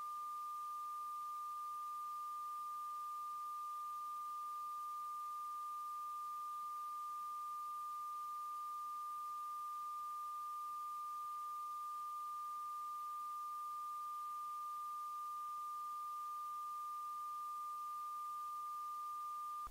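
A single steady, high-pitched electronic tone, a pure ringing held at one unchanging pitch, used as a sound-design effect in the film's soundtrack.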